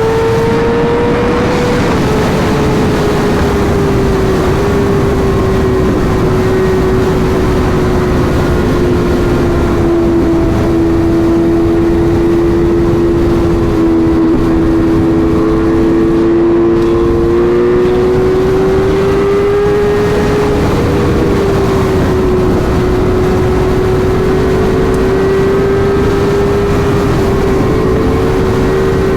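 Sport bike's inline-four engine running at high revs at highway speed, a steady high-pitched drone that sags slowly and climbs back as the throttle changes, over loud wind rush.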